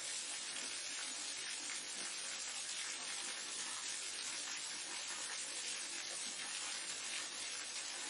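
Waterfall rushing: a steady, even hiss of falling water, bright and with little low rumble, unchanging throughout.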